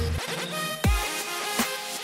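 Electronic background music with heavy bass. A steady low bass cuts out just after the start, then deep falling bass hits come in twice.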